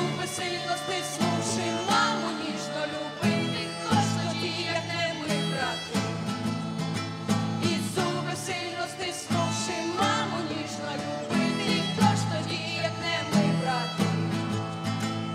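Instrumental passage of a song: guitar and other instruments over a steady beat.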